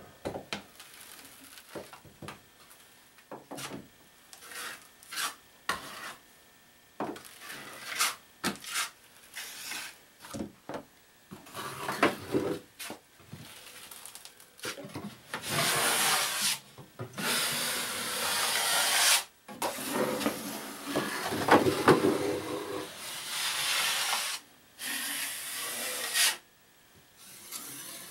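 An 8-inch steel drywall knife scraping premixed joint compound along metal corner bead as the finish coat is put on and wiped off. It starts as a run of short scrapes and taps, then turns about halfway through into longer, louder scraping strokes that stop shortly before the end.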